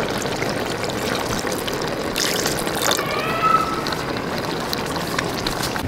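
Water poured in a steady stream from a steel jug into a clay cooking pot of stew.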